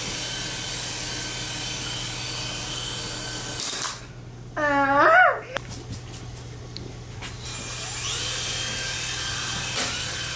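Small toy drone's propeller motors whining steadily with a high-pitched hum. About four seconds in the whine drops away and a short, loud, high-pitched call sounds. The motors spin up again about eight seconds in.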